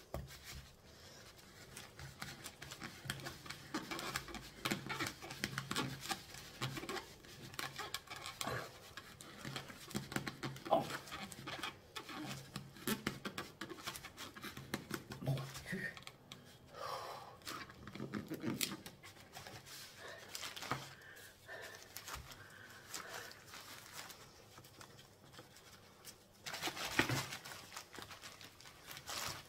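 Kitchen knife sawing back and forth through a hard compressed coconut coir brick, a run of irregular rasping scrapes, louder for a moment near the end.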